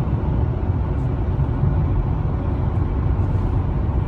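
Steady low rumble with a fainter hiss above it, unbroken and even in level.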